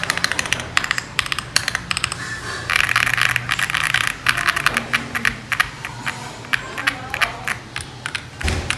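Typing on an Akko ACR Pro Alice Plus ergonomic keyboard with Akko Crystal linear switches, tape-modded and foam-filled, giving a steady run of quick keystroke clacks. There is a faster flurry of keystrokes about three seconds in.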